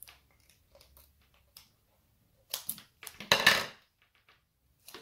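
Roll of Tesa adhesive tape being handled with faint clicks, then tape pulled off the roll in short tearing pulls, the longest and loudest about three and a half seconds in.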